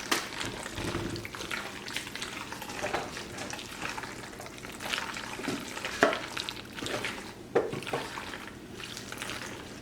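A spoon stirring a thick, wet casserole mix of penne noodles, tuna and cream of chicken soup in a bowl: irregular squelching and scraping, with small clicks and a couple of sharper knocks of the spoon against the bowl.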